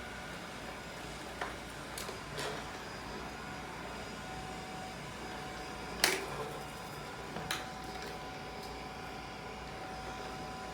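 Robot vacuum cleaner running with a steady hum and a faint whine, with a few sharp knocks, the loudest about six seconds in.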